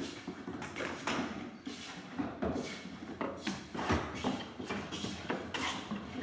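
Hand tools scraping and shaving along the plywood surface of a curved wooden mould, worked by two people at once: a quick, uneven run of strokes, about three a second.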